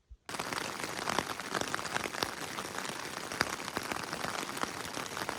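Rain pattering steadily: a dense hiss of many small drops that cuts in suddenly just after the start.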